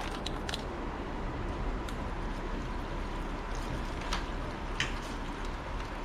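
Portable gas stove burning with a steady hiss while water heats for coffee, with a few small clicks and ticks scattered through it.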